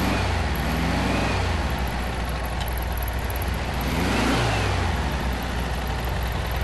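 Air-cooled VW Beetle flat-four engine running on a stand, its throttle opened by hand at the 30 PICT carburetor so the revs rise and fall twice, near the start and again about four seconds in. The engine has just been started on the freshly cleaned carburetor, which was empty of fuel and is being given a little gas to keep running.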